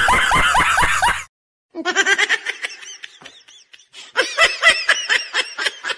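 A man laughing hard in quick repeated bursts, an edited-in laugh clip. It comes in three bouts, broken by short silences about a second in and near four seconds in.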